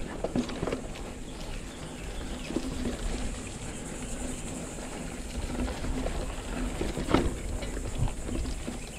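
Santa Cruz Chameleon mountain bike rolling along a dirt trail: tyre noise on dirt and leaf litter with scattered knocks and rattles over bumps, a sharper knock about seven seconds in, and wind rumble on the handlebar-mounted camera's microphone.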